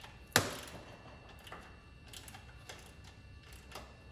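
A sharp metal clank about half a second in, then faint, irregular clicks from a ratchet wrench loosening a 10 mm ground bolt.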